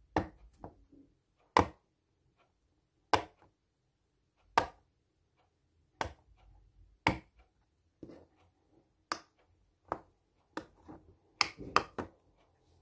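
Bubbles of a heart-shaped silicone pop-it fidget toy being pressed through one at a time, each giving a sharp pop. The pops come about every second and a half, then faster near the end.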